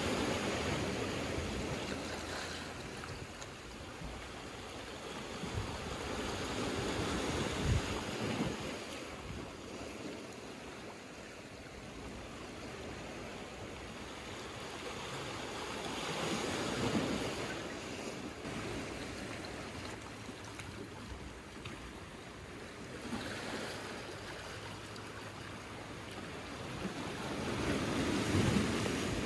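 Small sea waves washing in over rocks and a pebble shore, the surf swelling and ebbing every several seconds, loudest at the start and near the end.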